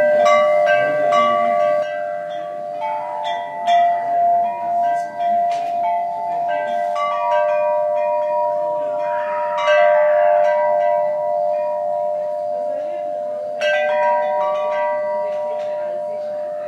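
Chimes ringing: several sustained tones overlapping, with new strikes every few seconds and a fresh cluster of strikes near the end.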